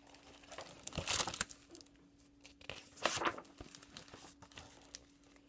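Pages of a hardcover picture book being turned and handled: paper rustling, loudest in two bursts about a second in and about three seconds in. A faint steady hum runs underneath.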